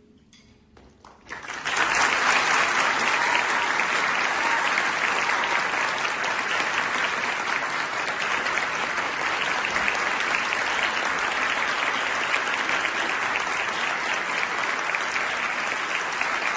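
Audience applauding: a few scattered claps in near silence, then full applause breaking out about a second and a half in and carrying on steadily.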